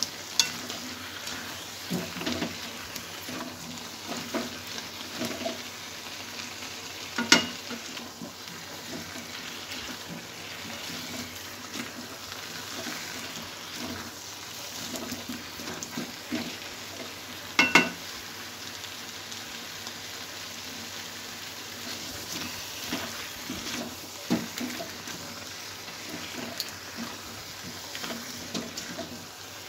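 Potatoes coated in spice and tomato paste sizzling in oil in a steel kadai while a wooden spatula stirs and scrapes them: the masala being fried down (kosha). Two sharper knocks of the spatula against the pan, about 7 and 18 seconds in.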